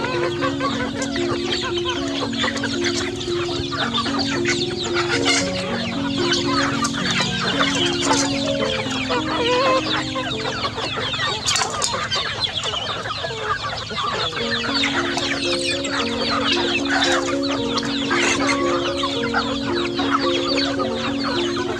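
A flock of chickens and young chicks clucking and peeping continuously as they feed, over a simple background tune of held notes.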